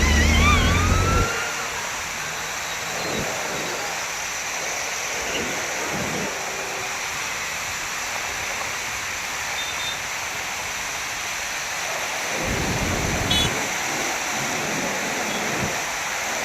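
Floodwater rushing over a low bridge: a steady, even hiss. A vehicle passes in the first second with a low rumble and a few short gliding tones.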